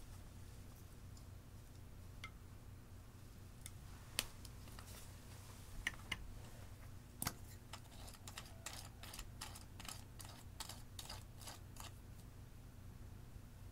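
Small plastic clicks and taps from makeup containers and a plastic spatula being handled over glass dishes: a few scattered clicks, then a run of quick clicks, about three or four a second, in the second half.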